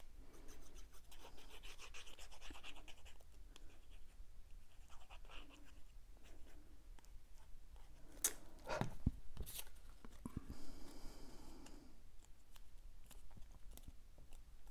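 Quiet handling of small cardstock paper pieces while glue is applied from a fine-tip bottle: soft rubbing and scratching of paper, with a few sharp clicks around the middle.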